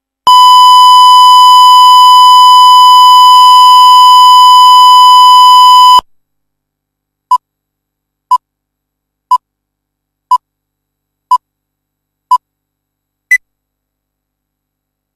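Broadcast tape line-up test tone: a loud, steady, pure high tone that cuts off suddenly after about six seconds. It is followed by countdown-leader beeps, one short beep a second, six at the same pitch and a seventh at a higher pitch near the end.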